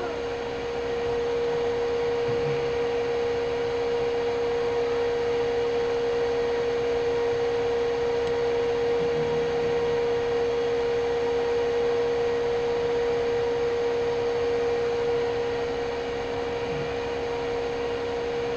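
A shop machine's electric motor running with a steady hum.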